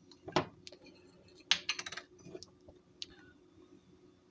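Light clicks and taps of kitchen utensils and containers being handled: one about half a second in, a quick run of clicks around one and a half to two seconds, and a last one near three seconds.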